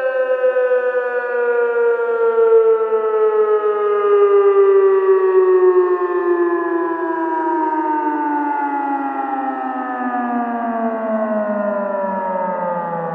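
Civil defense air-raid warning siren winding down: one long tone whose pitch slides slowly and steadily lower.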